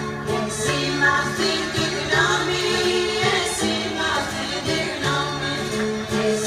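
Greek folk (dimotiko) dance song: singing over instruments with a steady low held note beneath the melody.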